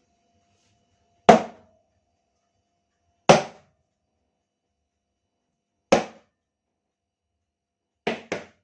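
A series of sharp, hard knocks: three single ones a couple of seconds apart, then a quick double knock near the end, each dying away at once.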